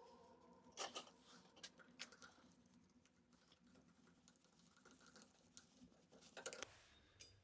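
Near silence with a few faint, scattered clicks and taps, a small cluster of them near the end.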